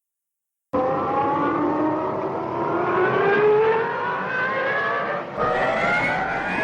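Cartoon sound effect of a motor speeding up, its pitch rising steadily, starting after a brief silence. About five seconds in it cuts to a second, similar motor sound that also rises in pitch.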